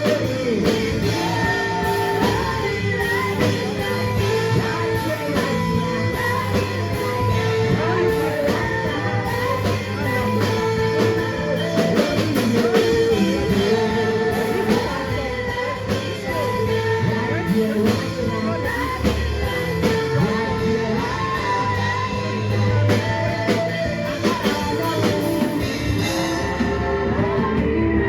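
Gospel worship song: sung melody over a band accompaniment.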